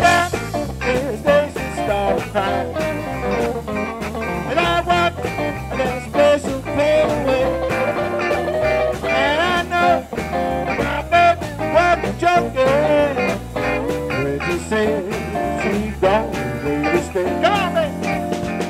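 Live blues band playing an instrumental break: electric guitars, bass and drums keep a steady beat under a lead line of bending, sliding notes.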